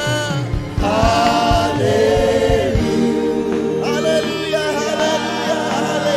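Gospel choir and worship singers singing with band accompaniment, held notes over sustained chords, with drum hits in the first three seconds.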